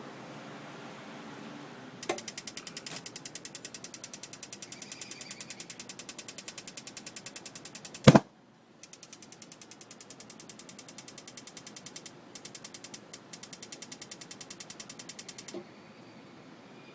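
Gas water heater's electronic spark igniter clicking rapidly and steadily, several sparks a second, while the burner fails to light. There is one loud sharp pop about midway, then the clicking starts again and stops near the end.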